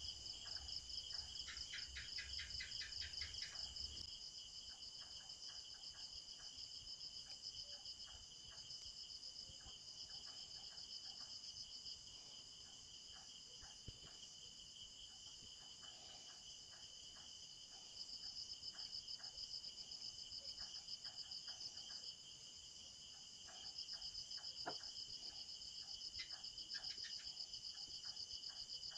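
Faint, steady chorus of chirping insects such as crickets: a continuous, finely pulsing high trill at two pitches, with scattered soft clicks and a quick run of chirps near the start. It grows louder about two-thirds of the way in.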